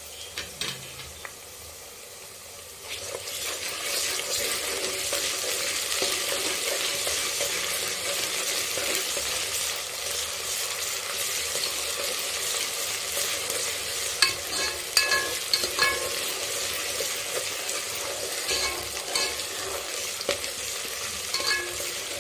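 Chopped onions and ginger-garlic paste sizzling in hot oil in an aluminium pressure cooker, stirred with a steel spoon that scrapes against the pot. The sizzle is quieter for the first few seconds, then rises sharply about three seconds in and stays steady, with a few clinks of the spoon in the second half.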